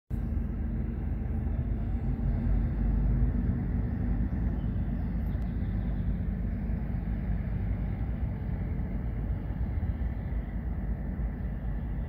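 Steady low rumble of outdoor background noise, without distinct events.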